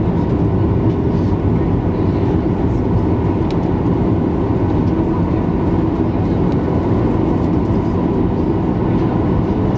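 Cabin noise of a Boeing 737-900ER heard from a window seat as it rolls slowly on the ground, its CFM56-7B engines at idle: a steady low rumble with a faint steady tone above it.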